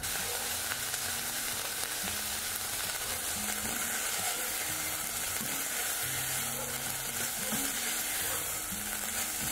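Ground beef sizzling steadily in a pan as it sautés, its released water cooking off before it starts to fry lightly.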